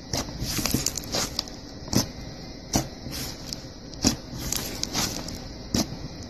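Thick, clay-like slime being kneaded and pressed with the fingers: soft sticky squishing with sharp pops and crackles about once a second as trapped air bursts.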